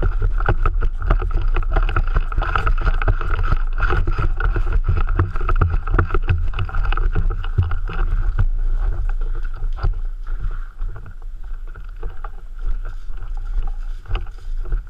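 Handling noise of a player on the move, close on a body-worn camera's microphone: a constant low rumble of wind and movement under many irregular rustles, knocks and steps. It gets somewhat quieter about ten seconds in.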